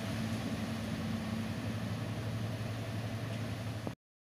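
Steady low hum with a faint hiss, a thin higher tone dropping out after about a second and a half; it all cuts off abruptly near the end.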